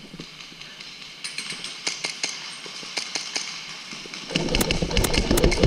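Indoor airsoft gunfire: scattered sharp cracks of shots and BB hits. About four seconds in, louder close-up rustling and knocking joins them.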